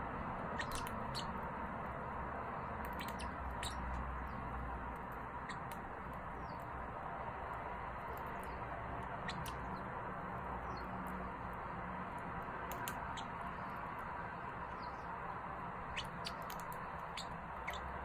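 Red-rumped parrot nibbling a cookie held in its foot: scattered small crunching clicks from its beak, a few at a time with gaps between, over a steady background hiss.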